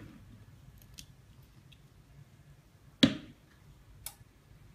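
A few sharp clicks of a tool on the phone LCD in a glue remover machine, the loudest about three seconds in and two lighter ticks around it, over a faint low hum.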